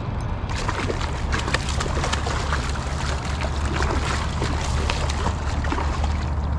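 Water splashing and sloshing close by in an irregular, crackling run that starts about half a second in and stops near the end, over a steady low rumble.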